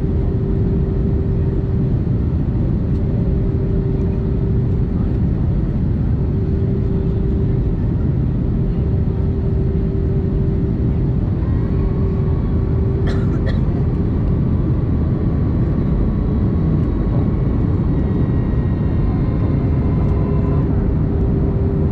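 Airbus A321neo cabin noise on approach: a steady roar of engines and airflow with a steady hum. About halfway through, a fainter whine joins as the flaps extend and runs nearly to the end, with one short click just after it starts.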